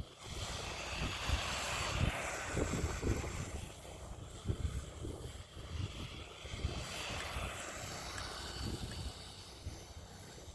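Rlaarlo electric RC rally car doing a donut on icy, crusted snow: its motor running and its tyres scrabbling over the ice, with wind rumbling on the microphone. Loudest in the first few seconds, then slowly fading.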